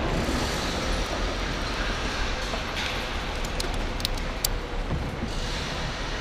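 Small petrol engine of an ActSafe powered rope ascender running steadily as it hauls a climber up the rope, with a few sharp clicks about four seconds in.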